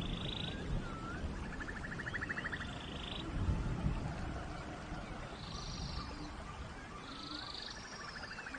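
Forest rain ambience: a steady hiss of rain, over which animals repeat short, fast-pulsed trills at a high and a lower pitch, with small rising chirps in between.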